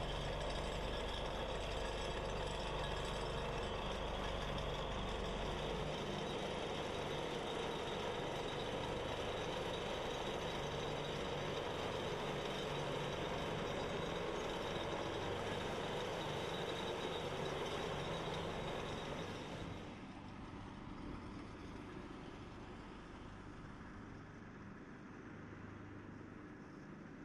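Ditch Witch HT150 crawler tractor's engine running under load while its vibratory plow blade shakes through the soil, laying conduit. The level drops sharply about twenty seconds in, leaving a fainter, steady low engine hum.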